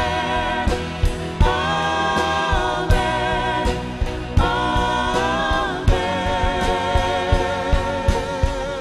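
Worship band singing a closing "Amen" refrain: several voices in harmony hold long notes over electric bass and a drum kit keeping the beat, the last note held with vibrato from about six seconds in.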